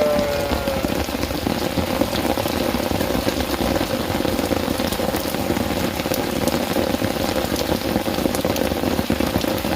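Steady rain falling on surfaces, a dense patter of small drop ticks. A goat's bleat trails off in the first second.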